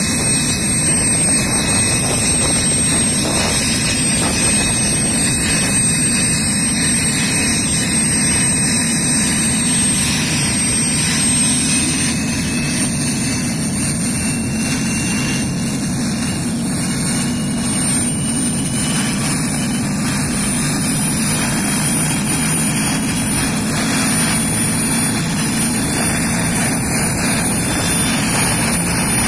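Helicopter's turbine engines running on the ground, a steady loud rush with a thin high whine that climbs slightly in pitch.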